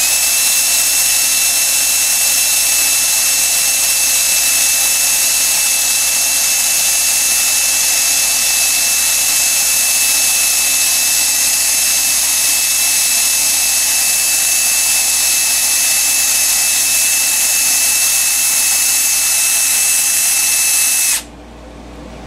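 18-volt cordless drill running at a steady speed with a constant high whine, stopping abruptly about 21 seconds in.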